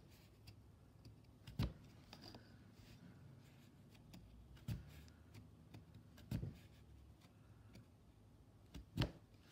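Oxford punch needle being pushed through monk's cloth, stitch by stitch, with wool yarn: a sharp pop or click with each punch, irregularly spaced one to three seconds apart, two in quick succession near the end, with fainter ticks between.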